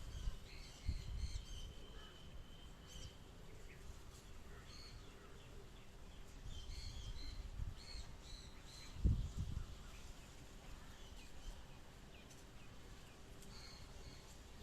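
Small birds chirping: short, high calls scattered through, with a few low thumps, the loudest about nine seconds in.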